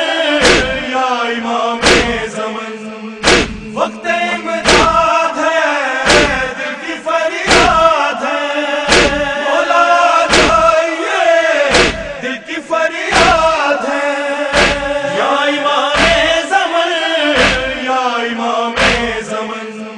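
A group of men chanting a noha, with unison chest-beating (matam) landing as a sharp slap about every second and a half.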